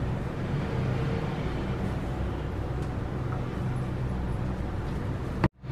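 Steady low rumble of background noise with a faint hum, cutting out suddenly near the end.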